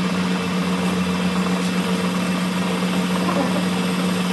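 Steady machine hum with one strong low tone and an even hiss, running without change.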